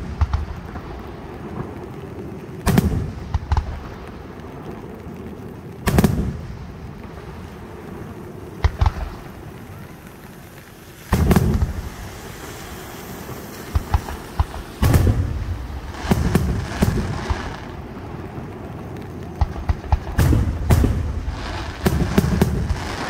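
Fireworks display: aerial shells going off in loud bangs every few seconds, each trailed by a rolling rumble. The bangs come quicker and closer together over the last few seconds.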